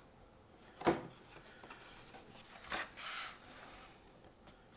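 Handling noise of a paper insert card being slid up out of a cardboard box: a single soft knock about a second in, then a short scraping rustle of card rubbing against cardboard about three seconds in.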